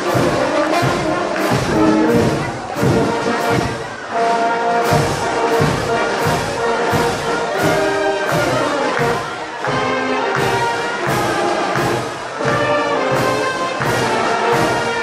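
Brass band playing a march with a steady beat of about two a second, and people clapping along in time.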